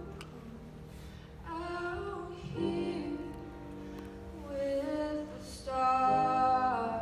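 Female voice singing with grand piano accompaniment: about three sung phrases of held notes over sustained piano chords, the loudest phrase near the end.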